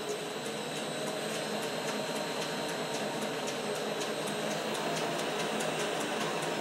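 South Bend lathe running under a VFD, spindle and belt drive whirring steadily, with a faint high whine and a regular light ticking. The sound grows gradually a little louder as the motor speed is turned up on the speed control.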